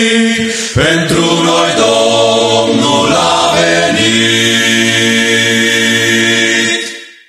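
Vocal octet singing the final bars a cappella, closing on a long held chord with a deep bass note. The chord fades out near the end.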